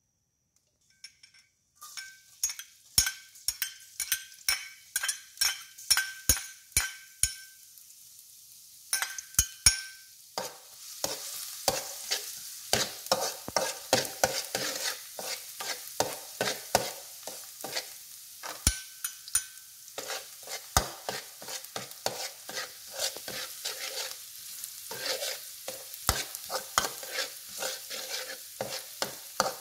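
A metal spatula scraping and knocking around a steel wok about twice a second, the wok ringing faintly. From about ten seconds in, chopped onion sizzles in hot oil under quick stirring strokes of the spatula.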